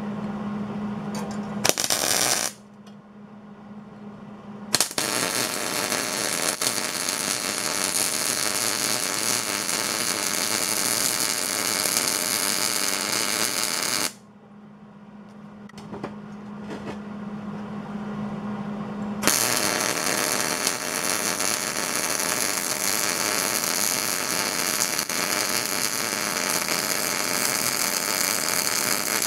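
MIG welding arc crackling steadily as weld is built up on the broken teeth of a steel gear. There is a short burst about two seconds in, then two long runs of about nine and ten seconds with a pause between, and a steady low hum shows in the gaps.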